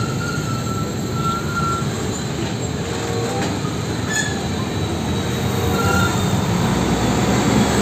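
Hino tanker trucks' diesel engines running as the trucks pull past, a heavy rumble with road noise and a few brief high-pitched squeaks.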